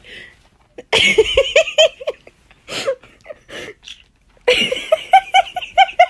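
Rapid, giggling laughter in two bouts: one about a second in, the other from about four and a half seconds in. Short single breaths or yelps come in between.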